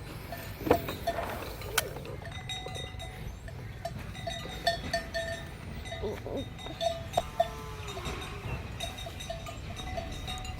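Bells worn by cattle clinking irregularly, the same few ringing notes repeating as the animals move, over a steady low rumble.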